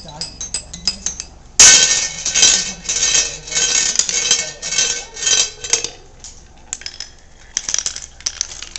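Marbles clicking and clattering through a marble run, with a sudden loud rush of dense rattling about a second and a half in that lasts about four seconds before thinning back to scattered clicks.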